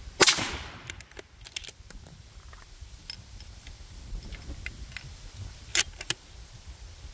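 A single AR-style rifle shot about a quarter second in, with a short echoing tail, fired through a chronograph setup for a velocity reading. Light clicks and clinks follow over the next few seconds, with two sharper ones near the end.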